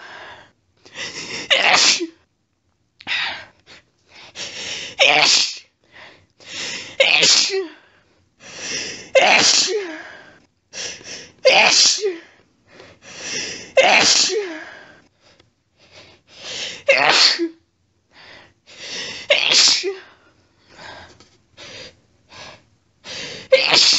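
A woman's allergic sneezing fit: about nine wet, intense sneezes, one every two to three seconds, each led in by a short hitching breath.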